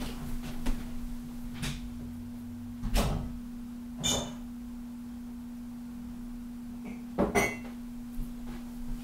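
A ceramic tea cup being handled and set down: four short knocks and clinks spread through the stretch, two of them ringing briefly, over a steady low hum.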